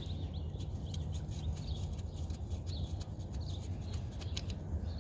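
A small bird chirps in short repeated calls over a steady low rumble, with scattered light clicks and knocks as gloved hands work the power steering pump and its hoses loose.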